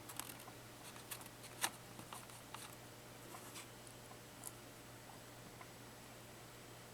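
Faint scattered clicks and light taps, about half a dozen, mostly in the first few seconds, over a steady low hum.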